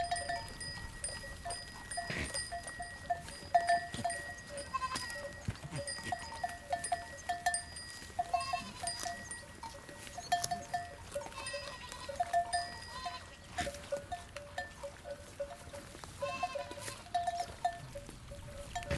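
Bells on goats clanking in short irregular clusters, with a sustained ringing note for most of the stretch. Goats bleat now and then.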